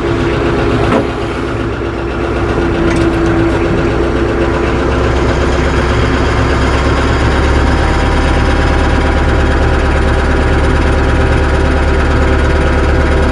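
Tractor engine running steadily as the tractor pulls forward, the level rising slightly about two seconds in and then holding.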